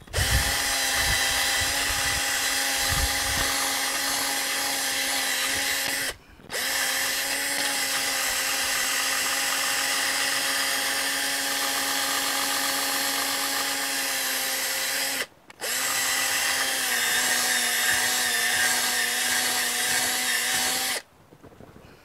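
Cordless drill spinning a wire brush against an aluminium carburetor float bowl to clean it. It makes a steady motor whine in three long runs, stops briefly about six seconds in and again about fifteen seconds in, and cuts off a second before the end.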